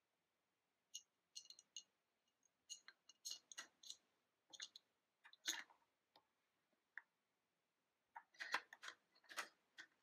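Faint, irregular small clicks and taps of hard plastic as a toy crane's hook and line are handled to hook and lift a plastic traffic-cone barrel, with a quick cluster of clicks near the end.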